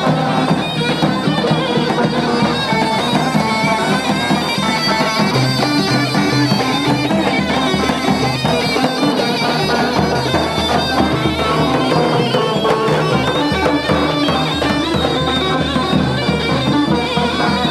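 Turkish folk dance music played loudly on a reed wind instrument over a steady drum beat.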